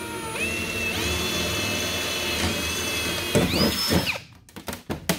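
Cordless drill boring a 3/16-inch rivet hole through an aluminium bracket into the diamond-plate deck: the motor whines steadily, rises in pitch in the first second, steps up higher shortly before it stops about four seconds in. A few light knocks follow.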